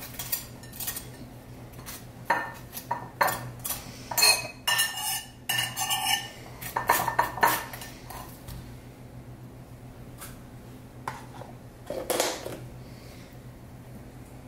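Cutlery clinking and scraping against dishes, a busy run of sharp clinks, some ringing briefly, for the first half, then quieter with one more clatter about twelve seconds in.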